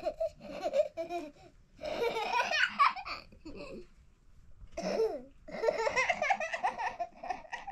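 People laughing, in three bursts of voice with pitch that swoops up and down.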